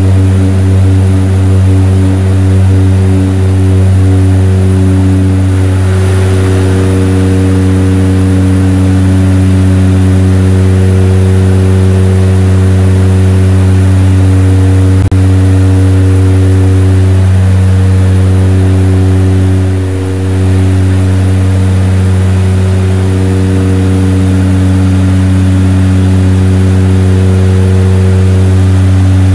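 Propeller aircraft's engines droning steadily, heard inside the cabin: a loud low hum with several pitched overtones that drift slightly against each other. A single sharp click about halfway through.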